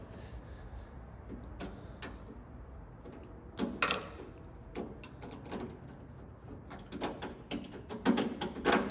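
Scattered metallic clicks and scrapes as a pry bar and screwdriver work the door lock cylinder and its retaining clip out of a 1975 International Scout II's steel door, over a steady low hum. The loudest scrapes come about four seconds in and in a cluster near the end.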